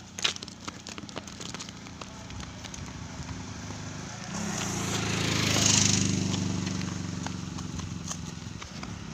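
A motor vehicle approaching and passing on the road, its engine hum and road noise swelling to a peak a little past halfway and then fading away, over a few footsteps at the start.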